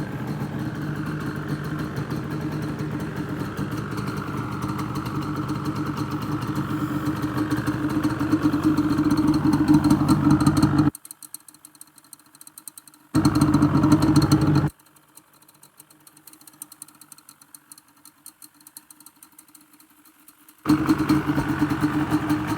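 Yamaha Banshee's two-stroke twin engine running steadily, getting a little louder toward ten seconds in. The sound cuts off abruptly about eleven seconds in, then comes back twice for a second or two each time.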